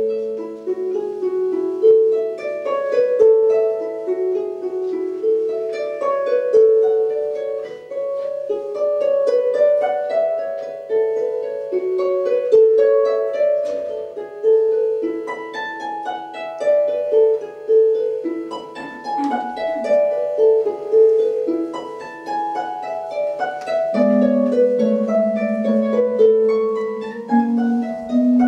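Solo harp playing a flowing stream of plucked, arpeggiated notes that ring on over one another. About three-quarters of the way through, lower notes join beneath them.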